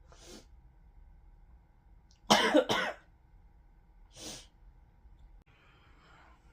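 A person coughing. There is a faint cough at the start, a loud double cough about two and a half seconds in, and a smaller single cough about a second and a half later, followed by a breath near the end.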